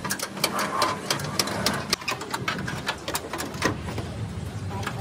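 An engine running steadily, with many irregular sharp clicks and knocks over it.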